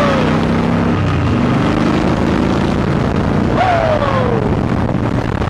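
Motorcycle engine running steadily while riding, with wind rushing over the microphone. A little over three and a half seconds in, a man lets out one long falling 'whoo'.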